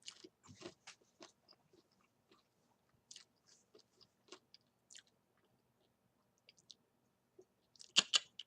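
Chewing, with soft irregular crunches and clicks and a louder burst of crunching near the end.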